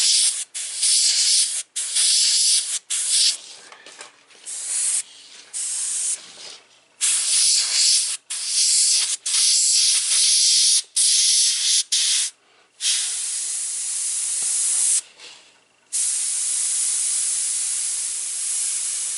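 Airbrush spraying paint, a high hiss in many short bursts as the trigger is pressed and let go, then two longer unbroken passes in the last third.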